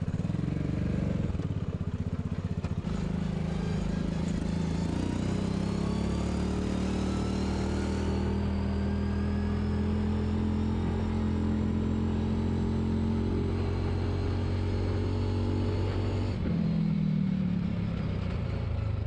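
UTV side-by-side engine running under way. Its pitch climbs over the first several seconds as it picks up speed, with a rising whine above it. It then holds steady until it shifts down about sixteen seconds in.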